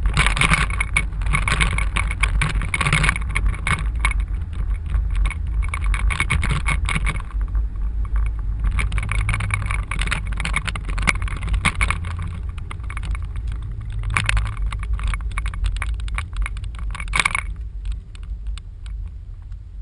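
Steady low road and engine rumble of a car being driven, heard inside the cabin. Irregular bursts of crackling noise sit on top and stop near the end.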